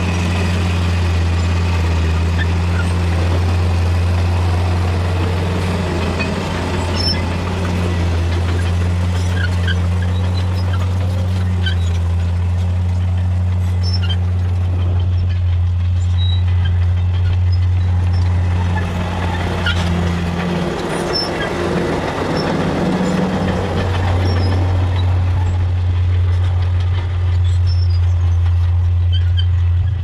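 Heavy diesel engines of a Shantui bulldozer and a dump truck running steadily, with scattered clatter of stones. About twenty seconds in the low engine note dips and a broader rushing noise swells for a few seconds before the steady hum returns.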